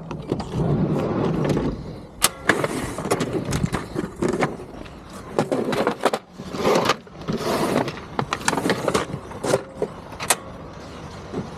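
Hands working on the strike's electrical cable and wires with small tools: irregular rustling and scraping, with several sharp clicks.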